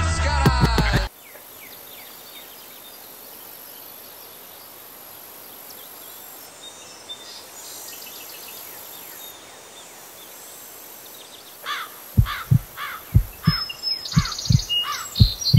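Intro music that cuts off about a second in, leaving steady faint outdoor background noise. About twelve seconds in, a run of deep thumps begins, often in pairs, with short falling chirps over the first of them.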